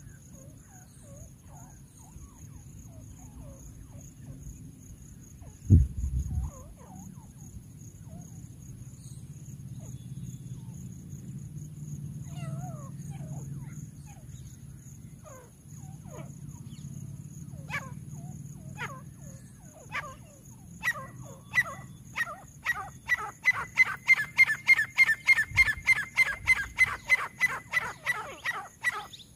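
Grey francolin calling: a run of loud, quickly repeated notes, about three or four a second, that starts about two-thirds of the way in and carries on to the end. Earlier, one dull thump about six seconds in, over a low rumble.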